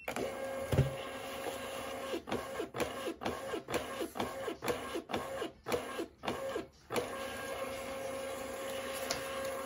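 Munbyn thermal label printer's feed motor running after its button is pressed, advancing the label paper, with a thump about a second in. Through the middle it stutters in short start-stop pulses, about two a second, then runs steadily again.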